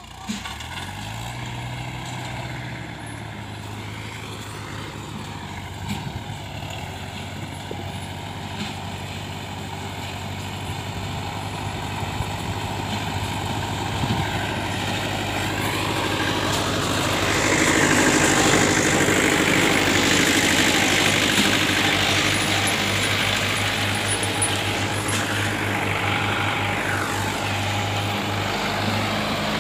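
Old Mahindra tractor's diesel engine running steadily under load as it hauls a loaded sugar cane trailer. It grows louder as it approaches and is loudest a little past halfway, with higher whining pitches rising and falling over the engine drone.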